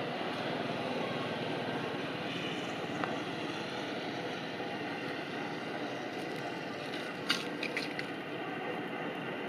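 Steady outdoor background noise with no clear pitch. There is one sharp click about three seconds in and a short run of clicks a little past seven seconds.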